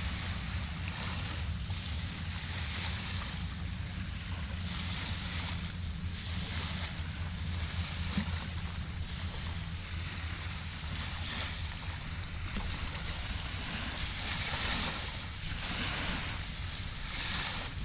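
Small river waves washing against the bank, swelling every second or two, over a steady low engine hum from boat traffic on the river.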